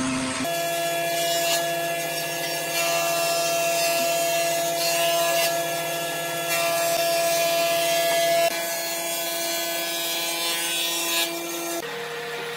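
Steady hum of a running electric machine motor, several fixed tones sounding together. One tone drops out about two-thirds of the way through, and the sound changes abruptly near the end.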